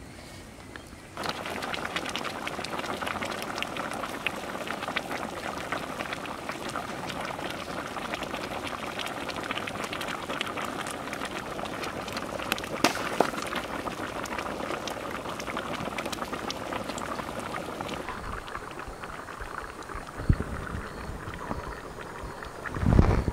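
Tamarind fish curry boiling hard in a large iron pan, a dense steady bubbling full of small pops that starts about a second in. A brief low rumble, the loudest sound, comes near the end.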